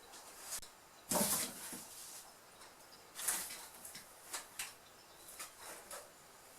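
Cats scrambling in and over a cardboard box: a few sudden scrapes and knocks, the loudest about a second in and another about three seconds in.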